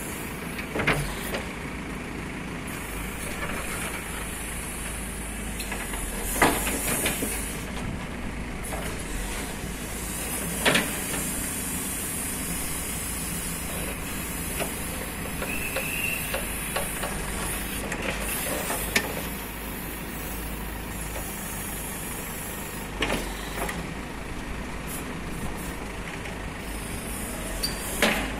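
JCB 3DX backhoe loader's diesel engine running steadily under digging work. Sharp knocks sound about six times at irregular intervals.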